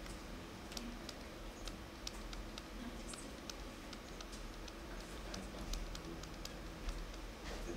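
Stylus tapping and clicking on a tablet screen while handwriting, faint irregular ticks a few times a second over a low steady room hum.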